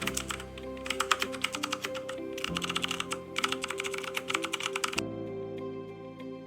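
Computer keyboard typing in quick runs of clicks over soft background music; the typing stops about five seconds in, leaving the music.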